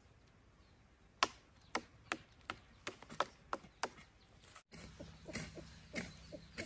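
Hoe chopping into dry, stony soil: a run of sharp knocks, two or three a second. After about four and a half seconds the knocks grow weaker and a low steady hum comes in.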